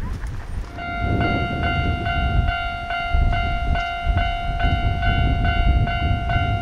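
Japanese railway level-crossing warning bell starting up about a second in, an electronic ringing tone repeating at about two and a half strikes a second, which signals that a train is approaching. A heavy low rumble runs underneath it.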